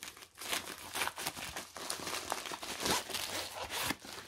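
Clear plastic packaging bag crinkling and rustling as it is opened by hand and a paper-wrapped rolled canvas is pulled out, a dense run of quick crackles.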